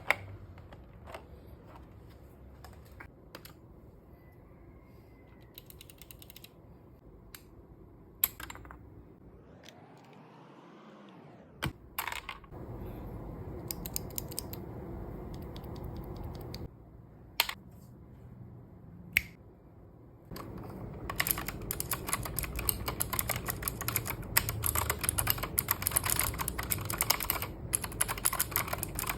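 Keychron K8 mechanical keyboard fitted with clicky-tactile Fantasy Virus switches. Scattered single clicks and knocks for most of the first twenty seconds, then fast, continuous typing with crisp key clicks from about two-thirds of the way through.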